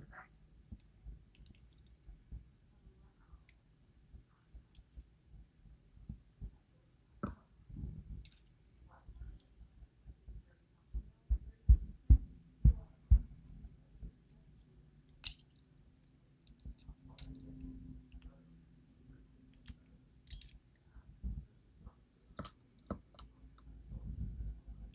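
Small metal clicks and taps of lock pins, springs and tools being handled on a work surface while a DOM IX lock is stripped down, with a run of about five louder knocks roughly halfway through.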